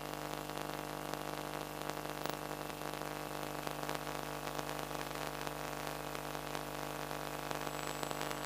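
Steady electrical hum with constant hiss, unchanging throughout: the noise floor of the FPV video link's audio channel, with no motor sound audible.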